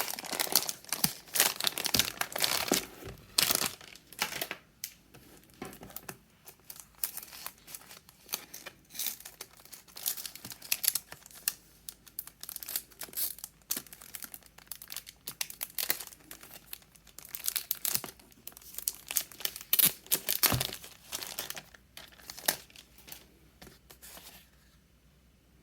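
Plastic or paper packaging being crinkled and torn open by hand in irregular bursts of crackling, thinning out near the end.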